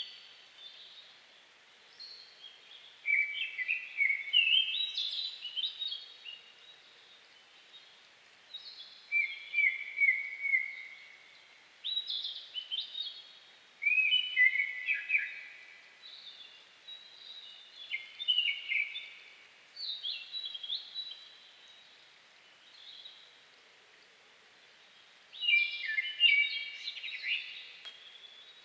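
A songbird singing a dawn song of short, varied, whistled phrases, each a second or two long with a pause of a few seconds between them, over faint forest background hiss.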